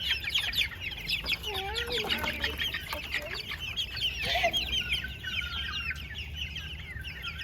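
A flock of chickens and turkeys calling in their coop: a dense, continuous chatter of short high-pitched peeps, with a few lower, wavering calls about one and a half and four and a half seconds in.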